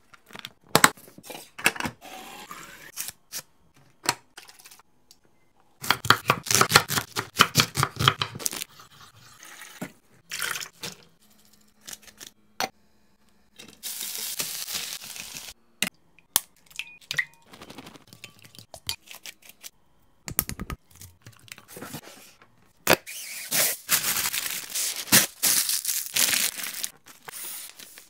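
Kitchen handling sounds while packing a lunch: clicks and knocks of a plastic lunchbox and its lid, with two bouts of crinkling, tearing packaging, one about six seconds in and a longer one near the end.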